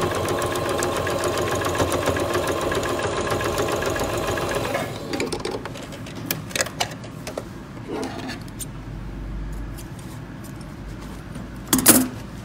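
Domestic electric sewing machine stitching a seam at a steady speed, stopping about five seconds in. Then come light clicks and rustles of the fabric being handled, and a short, loud burst of handling noise near the end.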